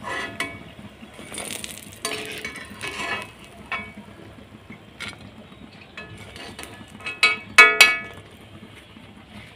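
Metal slotted skimmer clinking and scraping against the wok and plate as fried besan pakoris are lifted out of the oil and tipped off, with scattered clinks and a loud ringing pair about seven and a half seconds in.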